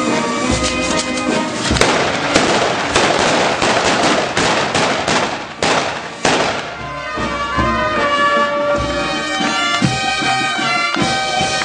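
Ground fireworks throwing sparks with a rapid, dense crackle of firecrackers, starting about two seconds in and lasting about five seconds, over band music with wind instruments that carries on after the crackling stops.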